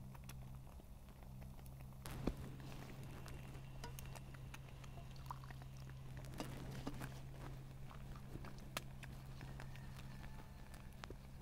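Hot water poured from a small camping kettle into a wooden cup of soup, then stirred with a wooden spoon, faint and with small clicks and knocks. A sharp knock comes about two seconds in, over a steady low hum.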